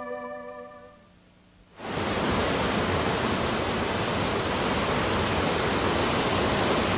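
Keyboard music fades out, and about two seconds in a steady rushing noise cuts in abruptly and holds evenly: the rush of powder snow streaming off a high mountain ridge.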